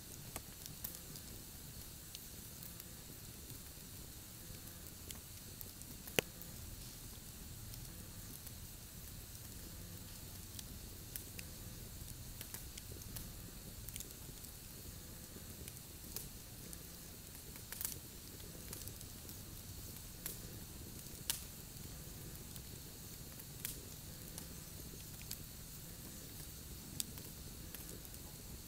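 Wood campfire burning: a steady low hiss of flames with irregular crackles and pops from the logs, a handful of them sharper and louder than the rest.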